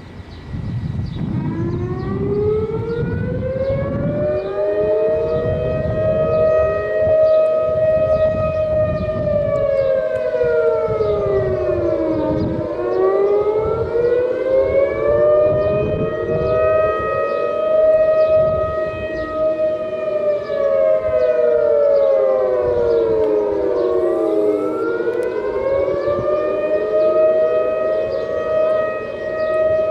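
Civil defence warning sirens of the emergency alert system sounding in a test. The wail starts about a second in, rises to a high held tone, falls and rises again. Several sirens overlap out of step with one another.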